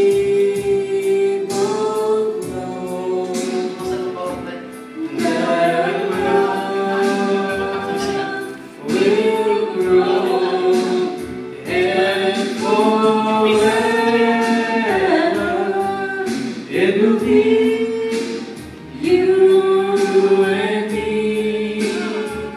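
Woman singing karaoke into a handheld microphone over a backing track with a steady beat, holding long notes.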